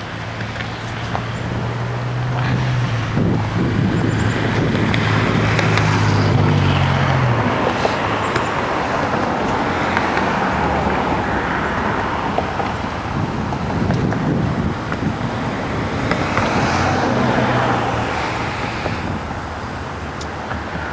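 Strong wind blowing in gusts, swelling and fading every few seconds, with a steady low hum underneath at times.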